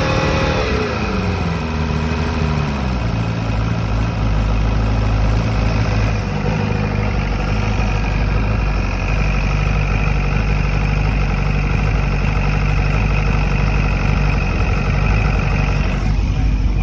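Chrysler 90 hp two-stroke outboard motor running just after catching on its first start since being mounted. Its revs fall over the first few seconds and it settles into a steady idle.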